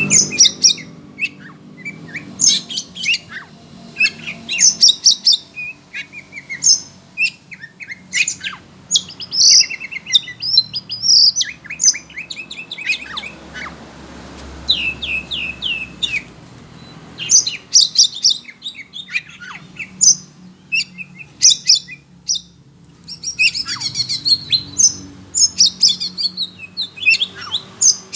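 Oriental magpie-robin (kacer) singing in quick, varied bursts of high chirps and whistles with short pauses between phrases. The song is agitated, set off by hearing another bird.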